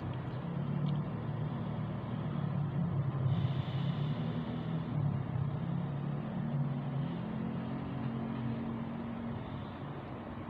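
Steady low rumble of road traffic on the highway below, heard through a closed window, with a passing swell about three to five seconds in.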